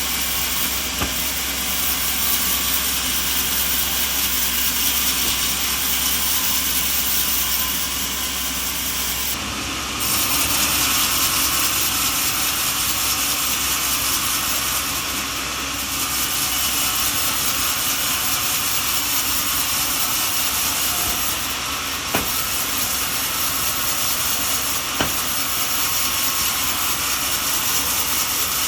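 Sawmill saw cutting through a coconut log, a steady loud noise that shifts a little every few seconds.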